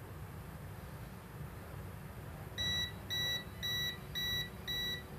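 FUYI FY76 digital multimeter's non-contact voltage (NCV) detector beeping as it is held against a live power socket: a run of five short, same-pitched beeps, about two a second, starting about two and a half seconds in. The beeping signals live mains voltage and quickens as the meter nears the live wire.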